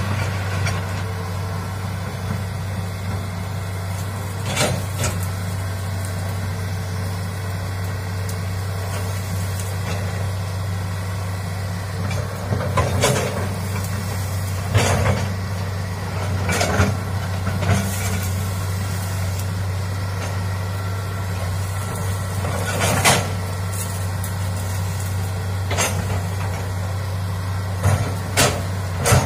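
Hitachi hydraulic excavator's diesel engine running steadily under working load, with sharp cracks every few seconds as its boom and bucket push through trees and brush.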